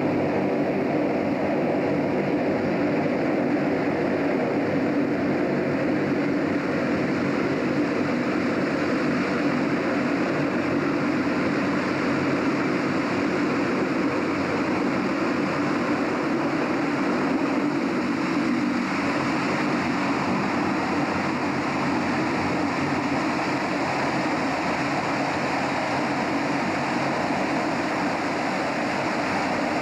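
Ferry boat's engine running steadily: a constant mechanical drone with a broad rushing noise over it.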